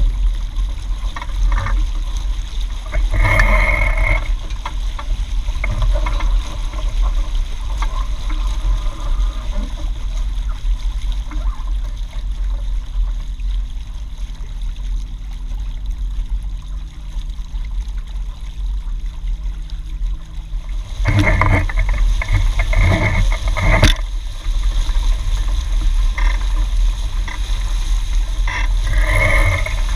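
Water rushing and slapping along the hull of a Hobie 16 catamaran under sail, over a steady low rumble. The splashing surges louder about three seconds in and again in several bursts a little past twenty seconds.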